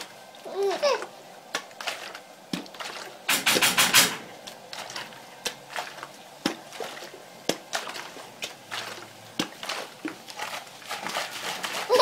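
A plastic water bottle being handled makes a quick run of crackles about three seconds in, then scattered clicks. A baby gives a short coo near the start and starts laughing at the very end.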